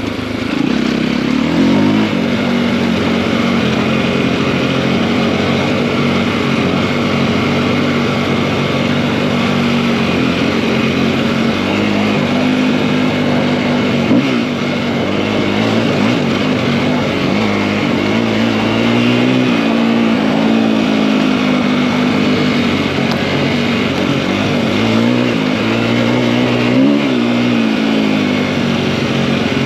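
KTM EXC-F enduro bike's single-cylinder four-stroke engine, big-bored to 280 cc, running at an easy cruise. Its pitch rises and falls gently a few times as the throttle is opened and rolled off.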